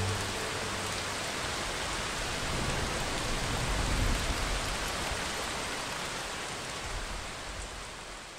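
Steady rain falling, an even hiss that sinks gradually near the end.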